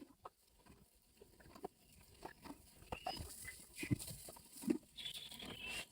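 Faint, scattered soft knocks and rustling as the straps of a pony's fleece stable rug are handled and fastened, with a few short high chirps about three seconds in and near the end.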